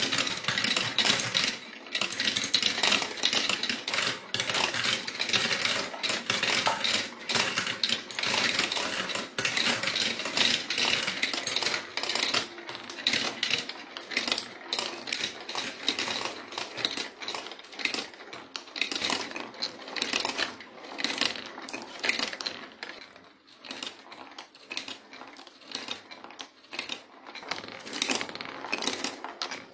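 Marbles rolling and clattering down a marble-run track: a dense, rapid stream of small clicks and rattles that thins out toward the end.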